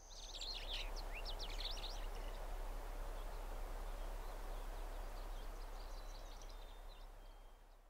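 Harbor ambience soundtrack: a steady wash of water with birds calling, a burst of chirps in the first couple of seconds and fainter calls later, the whole fading out near the end.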